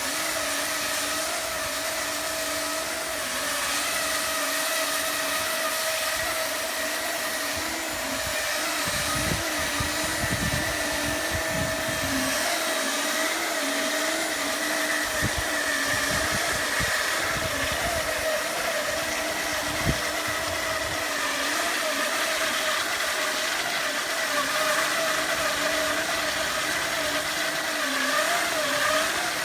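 Hydraulic concrete wire saw running off a hydraulic power pack: a steady machine hum with two slightly wavering tones over a hiss. There are occasional low thumps around the middle and one sharp knock about two-thirds of the way in.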